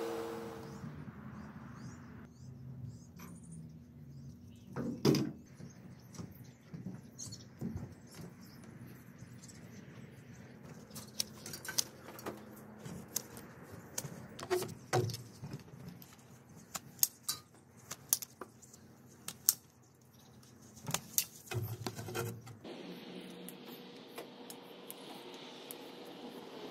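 Pole pruner cutting conifer branches: irregular sharp snaps and clicks of the lopper head and branches, scattered through, with one louder snap about five seconds in.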